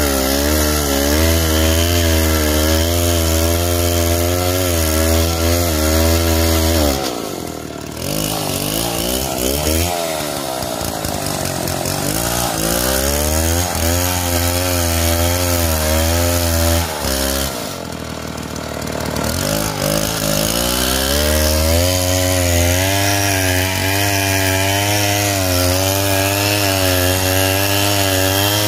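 Two-stroke chainsaw ripping lengthwise along a log under load, its engine note wavering as the cut goes. Twice, about a quarter of the way in and again past halfway, the engine note drops and winds back up.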